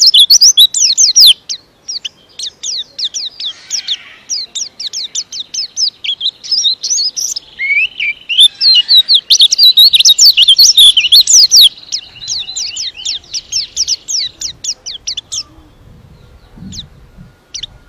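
White-eye (pleci) singing a long, fast song of tightly packed high chirping notes, with a few short pauses. The song thins to scattered faint notes near the end.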